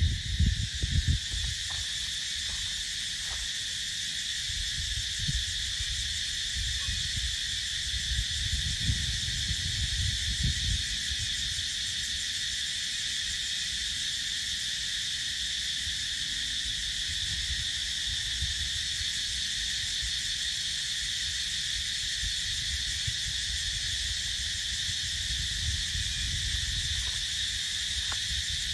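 A dense chorus of cicadas buzzing as a steady, unbroken high hiss. Under it runs a low rumble that swells briefly at the start and again around nine to ten seconds in.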